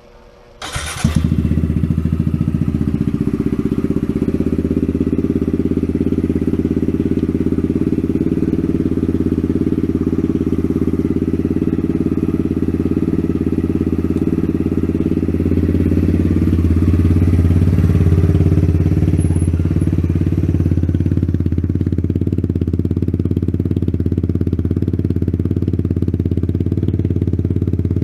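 Kawasaki Z125 Pro's 125 cc single-cylinder four-stroke engine, fitted with a Yoshimura exhaust, starting about a second in and then running steadily, a little louder for a few seconds past the middle.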